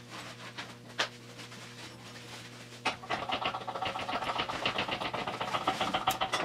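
Hydraulic shop press working under load as its dies press a bead into a sheet of 18-gauge steel: a sharp click about a second in, then, from about three seconds in, a rapid rhythmic mechanical chatter with a whine that runs until near the end.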